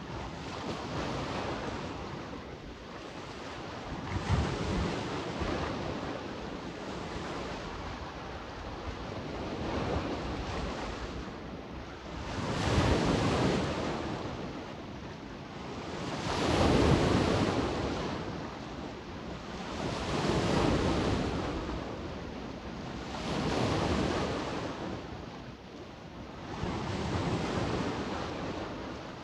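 Small sea waves washing in on the shore, each swelling and falling away about every three to four seconds. The maestral wind is blowing on the microphone.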